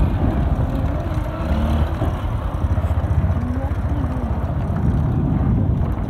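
Honda XR motorcycle's single-cylinder engine running steadily while the bike is ridden.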